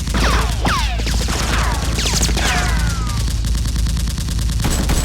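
Rapid automatic gunfire sound effect, shots following one another many times a second, with several falling whistle-like tones over the first three seconds.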